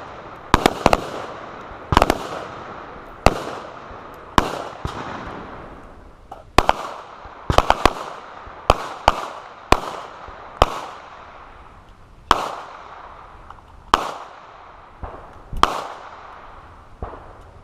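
Gunfire from several shooters firing AR-style carbines and pistols: about twenty sharp shots at irregular spacing, some in quick pairs or triples, each with a ringing echo, thinning out toward the end.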